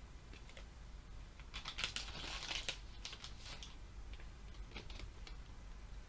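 Pokémon trading cards and a clear plastic card sleeve being handled: light crackling and clicking, a quick flurry of it about one and a half seconds in, then a few scattered clicks.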